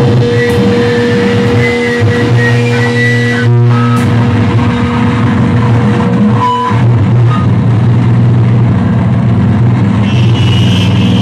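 Loud, heavily distorted electric guitar noise: a thick, steady low drone under a harsh hiss, with a high whistling feedback tone over it for the first few seconds.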